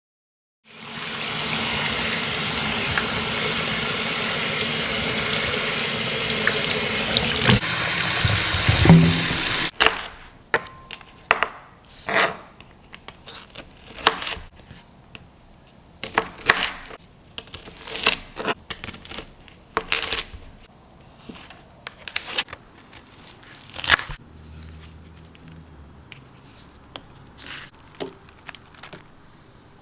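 Kitchen tap running hard into a sink for about nine seconds, the sound changing and getting fuller near the end as the water fills a vessel. After it stops, scattered light knocks and clatters of kitchen items being handled.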